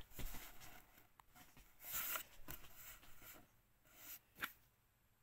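Faint rustling and handling noise from a packaged tube of paint being held and moved, with a louder rustle about two seconds in and a sharp click near the end.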